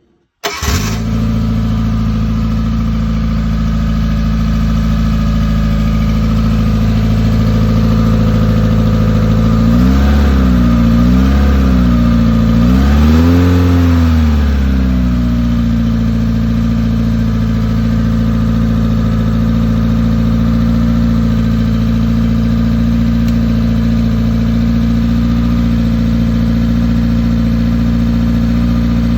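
Godiva GP1600 fire pump's freshly rebuilt engine catching about half a second in and running steadily. In the middle it is revved up three times in quick succession, each rise and fall in pitch a little higher than the last. It then settles back to an even idle.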